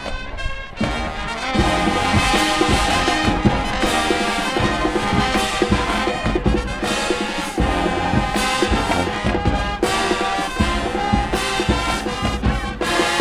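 Marching band playing: brass horns over heavy drums, the full band getting louder about a second and a half in.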